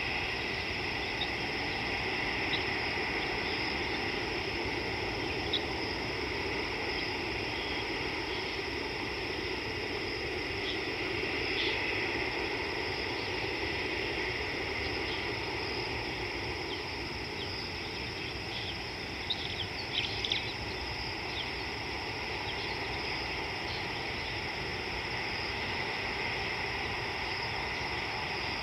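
Steady chorus of insects, a high continuous chirring, over a low outdoor background hum, with a few faint short clicks, a small cluster of them about two-thirds of the way through.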